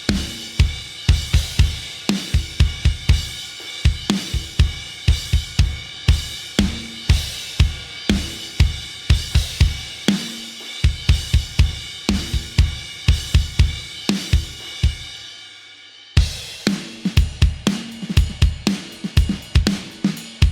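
Sampled acoustic drum kit from EZdrummer 3's Pop Punk EZX library playing a driving pop-punk beat of kick, snare, hi-hat and cymbals. Near the end the beat breaks off for a moment while a cymbal dies away, then the groove starts again.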